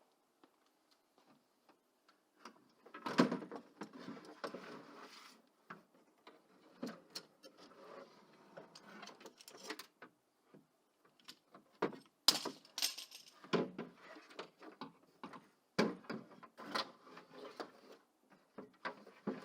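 Hand work on a car door during a window regulator replacement: irregular clicks, knocks and light metallic rattling of parts and tools being handled. The sharpest knocks come about three seconds in and near the middle.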